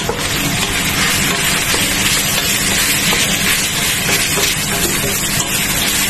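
Ground meat and sliced hot dogs sizzling in a steel pot, a steady hiss with a low hum underneath.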